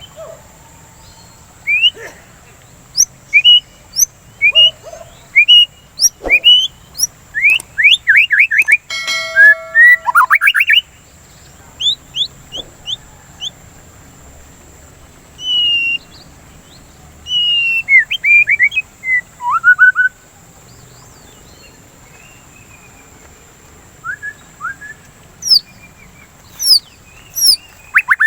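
White-rumped shama (murai batu) singing: bursts of clear whistled notes and quick sweeping phrases, broken by pauses of a second or more, with a dense flurry of phrases about a third of the way in.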